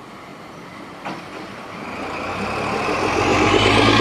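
Kashima Rinkai Railway KRD5 diesel locomotive passing close by, its engine drone growing steadily louder as it comes nearer. A single sharp click sounds about a second in.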